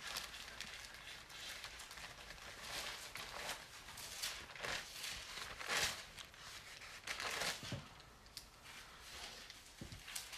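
Bible pages being leafed through, a faint string of irregular paper rustles and crinkles.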